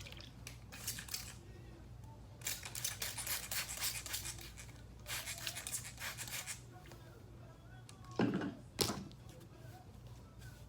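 Several bursts of rustling, rubbing noise, the longest lasting about two seconds, as wet curly wig hair is handled and worked, over a steady low hum.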